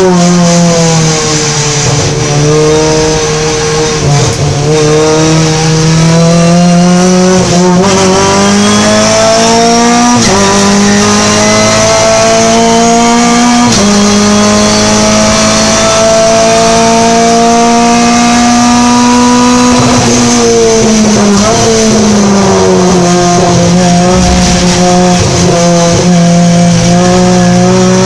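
Renault Clio Cup race car's four-cylinder engine heard from inside the cockpit, pulling up through the gears with the pitch climbing and dropping at each of three upshifts. It holds high revs, then falls away under braking and downshifts about twenty seconds in before climbing again.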